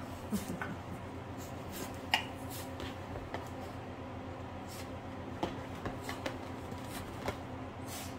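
Two small dogs scuffling in play on a leather ottoman: scattered scratches and rubs of paws and claws on leather, with one sharp knock about two seconds in, over a steady low hum.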